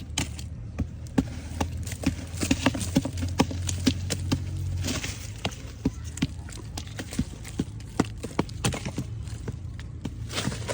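Irregular sharp knocks and taps, two or three a second, of a small dried-mud model being broken apart, over a low steady hum that stops about five seconds in.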